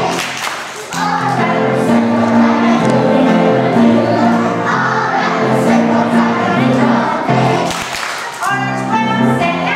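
A group of young children singing a song together, accompanied by an upright piano. The music breaks off briefly twice, about a second in and near the end, then carries on.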